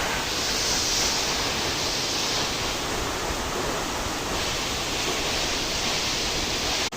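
Steady rushing of falling water from a waterfall, an even hiss across low and high pitches with no break.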